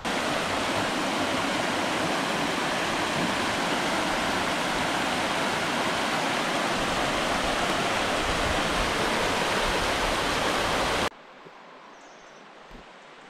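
A small waterfall pouring over a rock ledge into a river pool: a steady, even rush of falling water. It cuts off suddenly about eleven seconds in, leaving a much quieter faint outdoor background.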